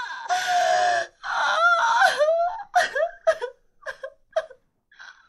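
A woman wailing in long, high-pitched cries, then breaking into a string of short sobbing gasps.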